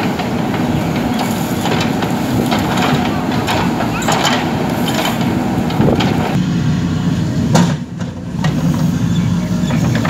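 JCB 3DX backhoe loader's diesel engine running under load, with scattered clanks and knocks from the digging bucket striking and scraping soil. The sound dips briefly just before eight seconds in.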